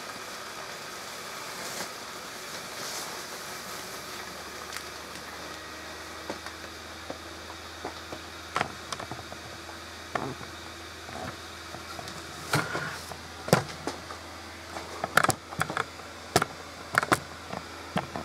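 The small electric blower fan of a Gemmy airblown inflatable snowman, running steadily with a low hum as it inflates the snowman. In the second half, a scatter of sharp clicks and knocks.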